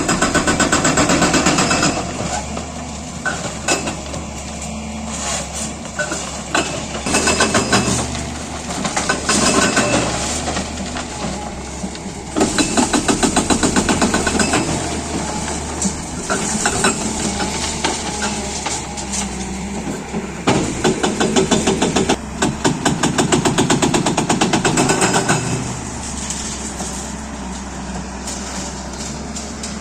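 Hydraulic breaker on a JCB 205 excavator hammering in bursts of rapid, evenly spaced blows, each burst lasting one to three seconds. There are about seven bursts, and the diesel engine runs steadily underneath and between them.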